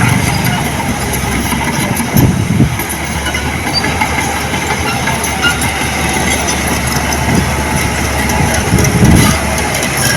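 Heavy diesel earthmoving machine running steadily, with clanking and rattling over the engine; it swells louder twice, about two seconds in and near the end.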